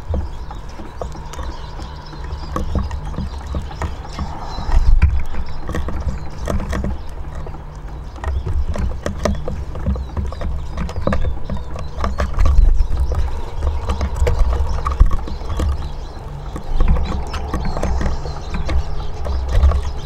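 Eurasian siskins pecking seed and hopping about a wooden bird table: irregular light taps and clicks of beaks and feet on wood and dishes, over a low steady rumble.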